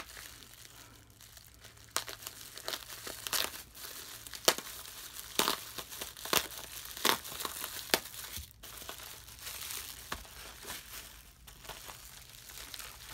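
Plastic bubble wrap crinkling and crackling as hands pull a wrapped package open, with irregular sharp crackles after the first couple of seconds.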